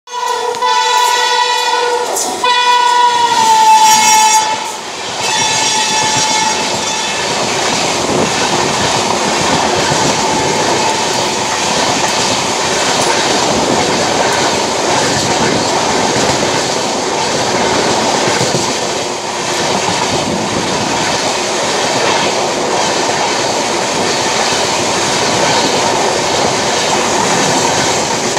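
Vaishali SF Express's electric locomotive sounding its horn as it runs through the station: two long blasts, the second dropping in pitch as the locomotive passes, then a shorter, fainter third. After that the coaches rush past at speed on the adjacent track with a steady rumble and wheel clatter.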